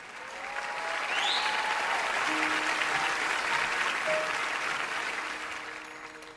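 Audience applause that swells over the first second, holds, and fades toward the end. A short rising whistle is heard about a second in. Soft background music plays underneath.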